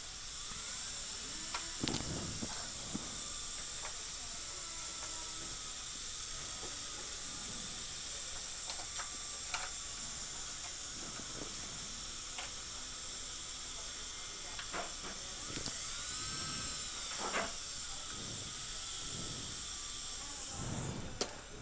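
Dentist's high-speed drill running steadily with a high hiss and whine, with a few light clicks of metal instruments; the drill cuts off near the end.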